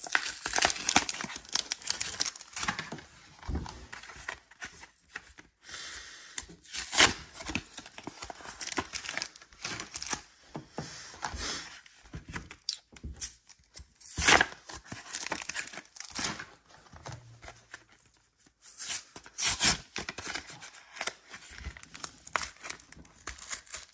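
Cardboard backing of Pokémon card blister packs being torn open by hand, with crinkling of the packaging, in irregular rips; the sharpest rips come about 7, 14 and 19 seconds in.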